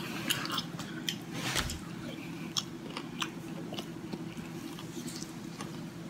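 Close-miked chewing: scattered small wet mouth clicks over a low steady hum.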